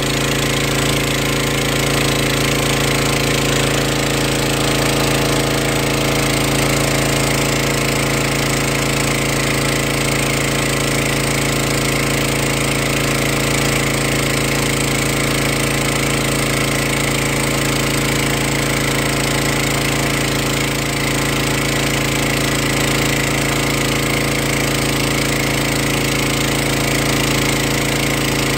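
A pump running steadily to drive a venturi sand pump for a water bore: a constant motor hum over a steady hiss of rushing water.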